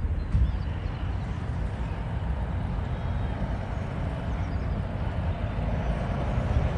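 Miniature railway train running on the track, a steady low rumble.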